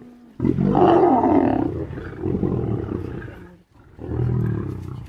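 Lions growling at one another while they feed on a zebra kill, squabbling over the carcass: one long rough bout starting about half a second in, then a shorter one near the end.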